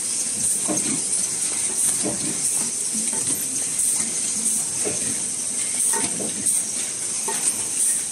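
Automatic three-piece gallon tinplate can body production line running: a steady mechanical hiss with metal knocks roughly once a second as the can bodies are fed and handled along the line.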